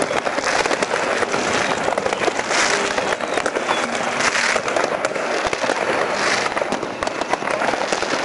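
Many fireworks and firecrackers going off at once: a dense, unbroken crackle of bangs, with swells of hissing every second or so.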